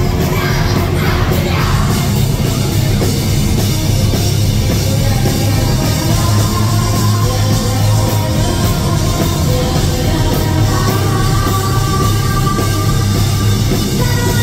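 Live rock band playing loud: distorted electric guitar, bass guitar and drums, with a woman singing over them.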